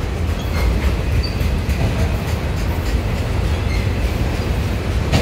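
Long freight train of autorack cars rolling past close by: a steady low rumble of steel wheels on rail, with occasional faint clicks as the wheels cross rail joints.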